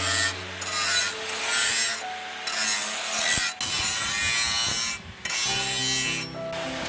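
Angle grinder grinding the edge of a steel cleaver blade, a harsh steady grinding noise that dips briefly twice, about halfway through and again a second or so later, as the disc lifts off the steel.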